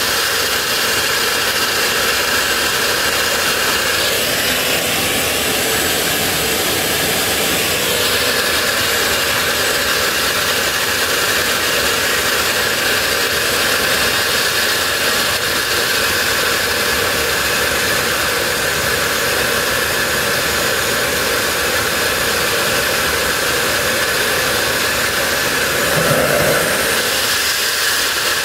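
Homemade turbojet made from a car turbocharger, running steadily: a loud, even rushing noise with a high steady whine. The sound shifts briefly between about four and eight seconds in, and there is a short louder surge a couple of seconds before the end.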